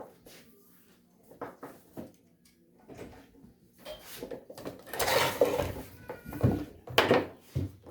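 Scattered knocks and clatter of tools being handled on a work surface, with a louder scraping rustle about five seconds in and a couple of heavier thuds near the end.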